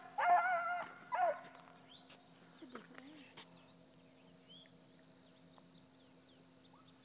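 Rabbit hounds baying on a trail: two drawn-out, wavering bawls in the first second and a half, then the baying stops. A steady high drone of insects carries on underneath.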